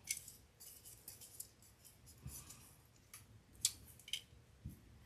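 Faint, irregular light clicks and scratches, about a dozen in five seconds, from fingers picking small foam beads out of a little plastic cup and placing them on a fake candy apple.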